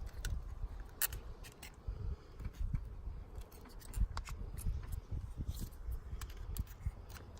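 Scattered small plastic clicks and scrapes with low handling bumps as a steak knife presses in the plastic retaining tabs of a broken Ford F-150 interior door handle to release it from the door panel.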